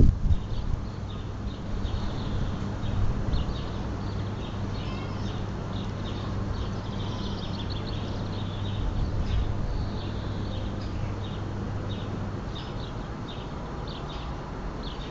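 Small birds chirping in short, high, repeated notes, over a steady low hum. There are a few bumps at the start and again about three seconds in.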